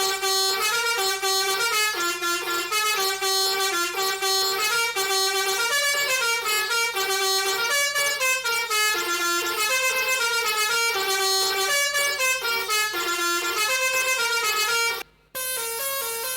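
Telolet basuri-style bus-horn sound playing a quick tune of horn-like notes that change several times a second. Near the end it breaks off for a moment, then comes back as a steady held tone.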